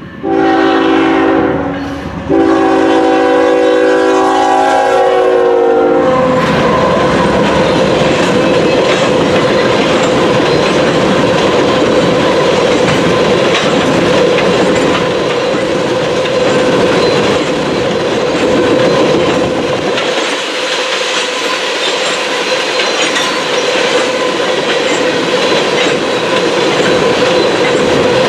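A freight locomotive's multi-chime air horn sounds two blasts, a short one and then a longer one whose pitch drops as the lead Norfolk Southern unit passes. This is followed by the steady rolling din of loaded oil tank cars going by, with wheels clicking over the rail joints and a constant ringing whine from the wheels on the rail.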